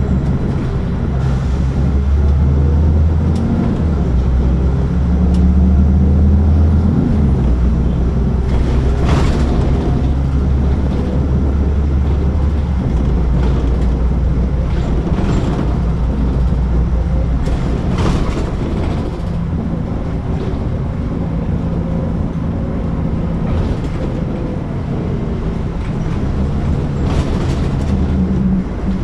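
City bus engine running, heard from inside at the back of the bus. Its low hum steps up and down in pitch several times, and a few brief sharp noises stand out about a third of the way in, two thirds in and near the end.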